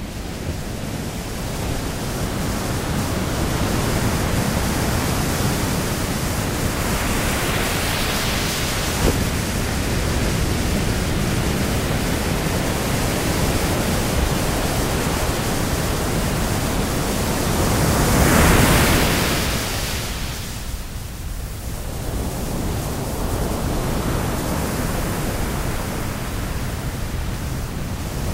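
A steady rushing noise that swells and fades twice, loudest about eighteen seconds in.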